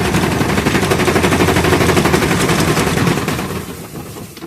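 Consul 12 kg washing machine kicking into its spin cycle with a loud, rapid rattling clatter that holds for about three seconds and fades near the end. The technician takes this noise for the defect: the rubber drive belt slipping on its pulley as the drum spins up.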